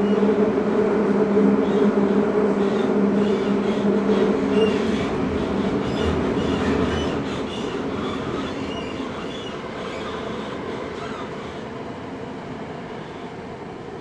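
Eidan 05 series subway train running, heard from inside the car: a steady motor hum over wheel-and-rail running noise. After about five seconds the hum fades and the running noise grows gradually quieter.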